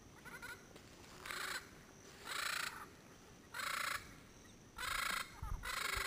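A pair of Yellow-headed Parrots (Amazona oratrix) calling noisily: about six harsh squawks, each under a second long and roughly a second apart, the first one faint.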